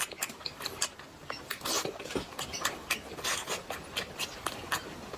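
Close-miked eating sounds: chewing with a quick, uneven run of clicks, smacks and crunches.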